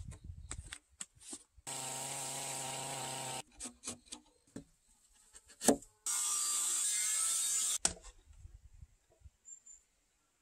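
Timber joinery on a solid-wood beam: scattered mallet-and-chisel knocks on the wood, broken by two short runs of an electric power tool, each under two seconds, the first about two seconds in and the second about six seconds in. The loudest sound is a single sharp knock just before the second run.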